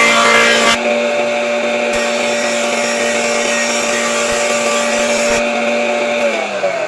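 Electric motor of a woodworking machine running at steady speed with a steady whine, then switched off near the end, its pitch falling as it winds down.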